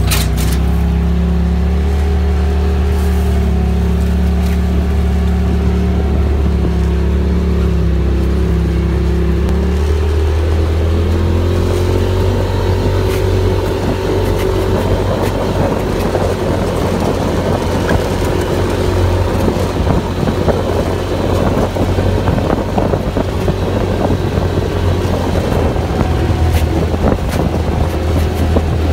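Side-by-side UTV's engine running steadily as the vehicle drives, heard from inside the open cab. About ten seconds in the engine note rises as it speeds up. From then on the ride over a rough dirt trail adds a rough noise with many small knocks and rattles.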